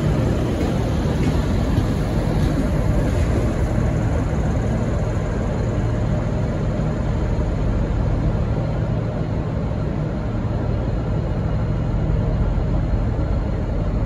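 Steady low diesel rumble of trains in the station: the N-class diesel-electric locomotive idling at the platform and a VLocity diesel railcar set moving on the next tracks.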